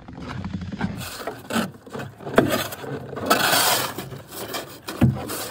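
Snow shovel scraping and scooping packed snow in a series of strokes, with a sharp knock about two and a half seconds in and another near the end.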